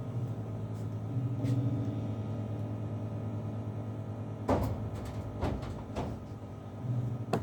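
Steady low electrical hum from an electric bass rig, with a few sharp clicks and knocks in the second half as the instrument is handled before the riff.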